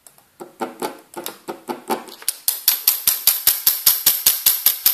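Derminator dermaneedling handpiece's motor driving the nine-needle cartridge at its medium speed setting: a steady, even ticking of about five to six strokes a second. The ticks grow louder over the first two seconds as the needling depth is raised to 0.75 mm, then hold steady.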